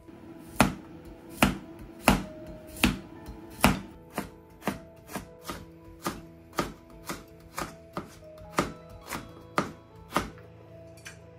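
Kitchen knife chopping on a cutting board, about twenty strokes. Five loud ones come first, spaced under a second apart, then quieter, quicker strokes follow at about two a second.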